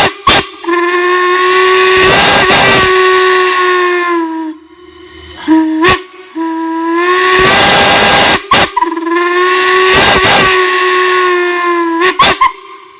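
A large whistle blowing one steady low note with strong overtones. It sounds a long blast with a brief break just after the start, then two short toots about halfway, a second long blast, and three quick toots near the end.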